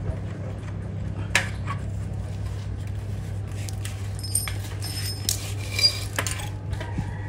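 Aluminium tube pieces being handled and fitted together on a tiled floor: a sharp tap about a second in, then a cluster of light metallic clinks with brief ringing a few seconds later, over a steady low hum.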